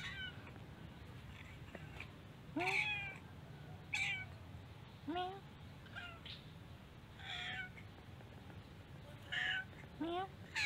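Tortoiseshell-and-white cat meowing repeatedly: about eight short meows, each rising in pitch, one every second or two.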